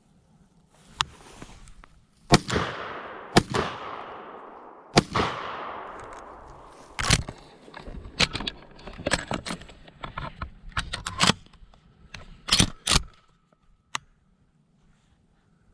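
Three shotgun blasts from a Remington 11-87 semi-automatic, fired in quick succession about a second apart, each followed by a long fading echo. A string of sharper clicks and knocks follows.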